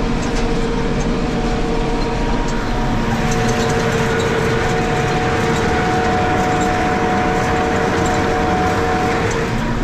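Tractor engine running steadily under load while pulling a no-till seed drill, with a steady drone and whine and faint ticking from the drill.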